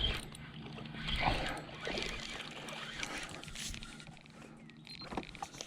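Ambient noise aboard a small fishing boat on a lake: light water and handling sounds with scattered small clicks over a faint steady low hum.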